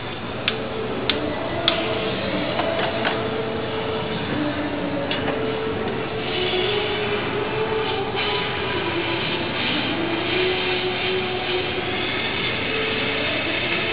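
Jeweler's soldering torch running with a steady rushing noise, with a few sharp clicks in the first two seconds.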